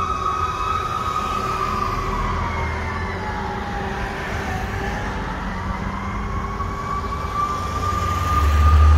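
Fire engine siren wailing while the truck moves off, its pitch sliding slowly down and then back up once. Traffic rumbles underneath, growing louder near the end as a vehicle passes close.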